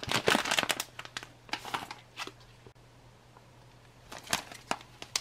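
Plastic and foil ration pouches crinkling as they are handled, in a run of bursts over the first two seconds and again briefly near the end.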